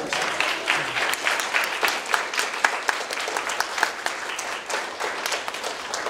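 A small group of people clapping and applauding, with the individual hand claps distinct and irregular.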